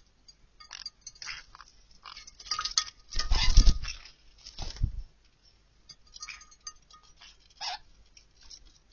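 Green-cheeked conures bathing in a shallow glass water dish: scattered small splashes and clicks, then about three seconds in a loud second-long flurry of wings beating in the water, and a shorter flurry just before five seconds.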